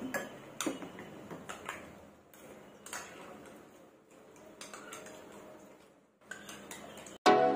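Spoons clicking and scraping against small bowls in quick, scattered strokes as two people hurry to eat. Loud background music starts abruptly near the end.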